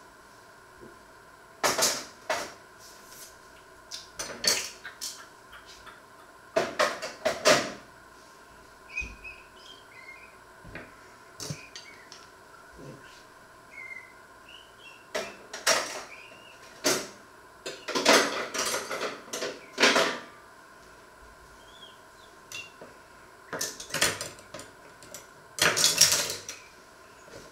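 Dishes, pots and cutlery being handled: sharp clinks and clatters in short bursts every few seconds, over a faint steady hum.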